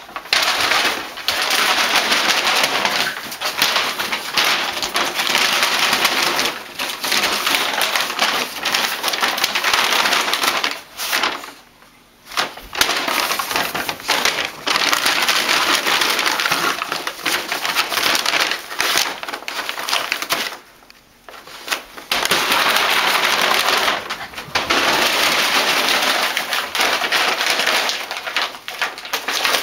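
Brown paper bags crinkling, crumpling and tearing as a dog pounces on them and shoves its head into them, in long rustling spells that stop briefly twice.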